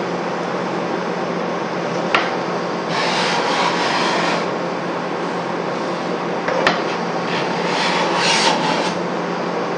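Sharp steel hand scraper scraping across a white oak board: one longer stroke about three seconds in and a few short strokes near the end, with two sharp clicks between. The keen hook is cutting curled shavings rather than dust, the sign of a properly sharpened scraper.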